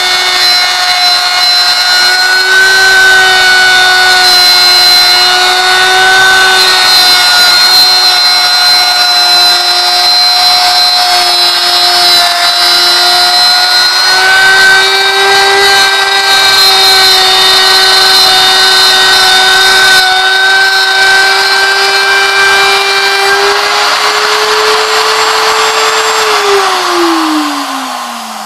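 Porter-Cable electric router running at full speed while it cuts a curved groove through a wooden door top, guided round on a trammel: a steady high whine over the noise of the bit chewing wood. Near the end the pitch rises slightly and then falls away steadily as the motor winds down.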